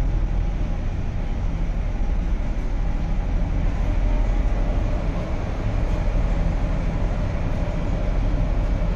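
Steady low rumble and hum inside a Cleveland RTA Red Line rapid transit railcar standing at a platform.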